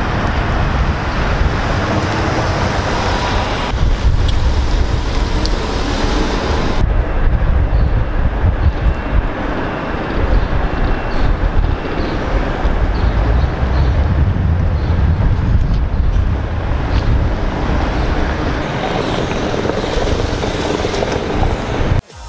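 Vehicle traffic noise with wind rumbling on the microphone. The background changes abruptly about 4 and 7 seconds in.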